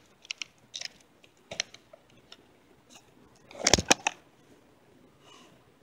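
Drawing and handling a .357 Magnum revolver and its leather holster: scattered short clicks and knocks, loudest in a quick cluster a little under four seconds in.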